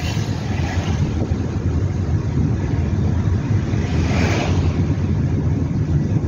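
Steady low rumble of road and engine noise inside a moving car. About four seconds in, an oncoming van passing close by adds a brief whoosh.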